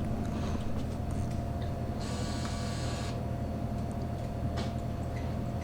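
Vending machine whirring for about a second near the middle as a purchase goes through, over a steady low hum, with a few faint clicks.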